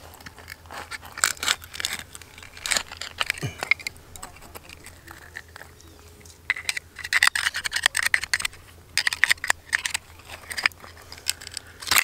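Screwdriver prying and scraping at a wild oyster's shell to shuck it: sharp clicks and crunching scrapes of blade on shell, coming in a dense run in the second half.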